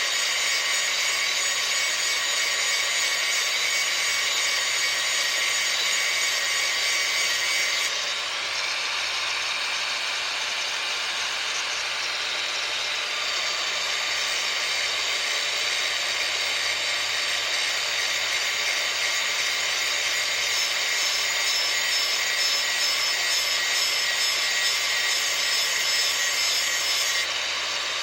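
Handheld grinder grinding the cutting edge of a steel lawn mower blade, running steadily with a high whine. The sound shifts about eight seconds in and again near the end.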